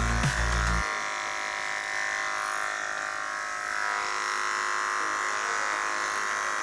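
Cordless electric pet clipper buzzing steadily as it shaves through a cat's thick white fur. Background music cuts off abruptly under a second in.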